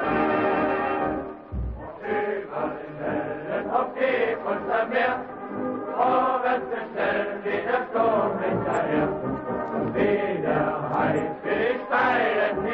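Background music: a held chord dies away about a second and a half in, and chant-like singing voices follow.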